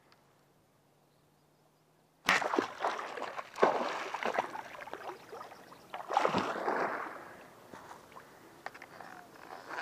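A sudden splash as a bowfishing arrow is shot into shallow water about two seconds in, followed by more bursts of splashing and sloshing close by, the last big one around six seconds in, then tailing off into quieter sloshing.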